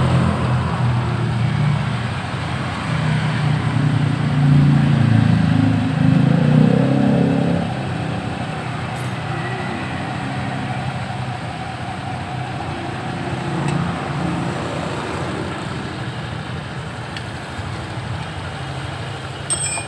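Honda Scoopy's single-cylinder scooter engine running, louder and revved for the first several seconds, then easing back to a steadier, quieter run.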